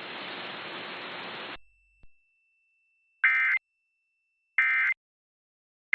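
Radio hiss that cuts off about one and a half seconds in, followed by three short, identical Emergency Alert System end-of-message data bursts (the digital SAME 'NNNN' code), evenly spaced about a second and a half apart, marking the end of the alert.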